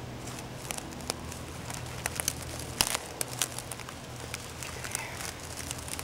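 Dry brush and clothing rustling, with scattered small clicks and crackles, as two people shift and settle in among the bushes. A faint steady low hum runs underneath.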